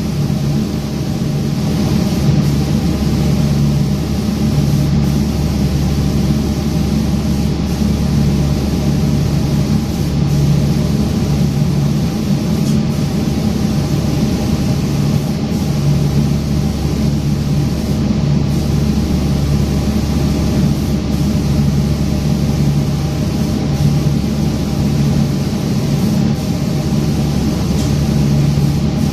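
Automatic lacquer spraying machine running in its booth: a steady low mechanical hum with a hiss of air over it. The hum swells about every two and a half seconds.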